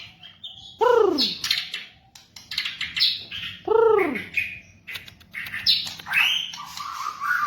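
White-rumped shama (murai batu) singing: varied phrases of quick chirps and trills, with two loud down-arching notes about a second in and about four seconds in, and a steady held whistle with chips over it near the end.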